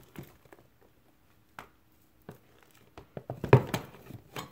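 Sticky fluffy slime of glue, shaving cream and borax squishing under fingers in a plastic tub as it is kneaded: a few faint wet clicks, then a louder run of squelches about three seconds in. The slime is still sticky, part-way through being activated with borax.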